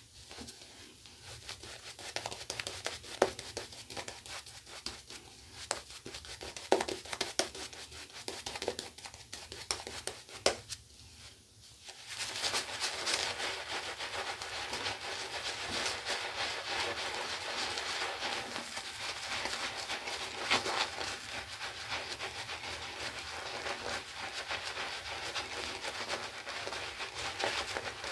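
Synthetic shaving brush lathering soap onto two days' stubble: wet, crackling brush strokes with scattered clicks at first, then dense, steady scratchy scrubbing from about twelve seconds in.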